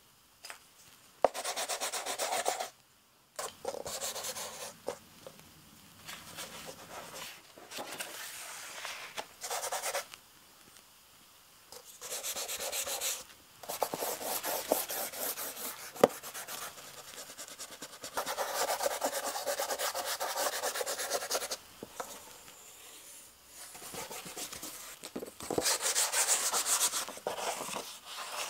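Charcoal and fingers rubbed and dragged across large sheets of drawing paper: a dry, scratchy hiss coming in strokes of one to three seconds with short pauses between, and a few small sharp ticks.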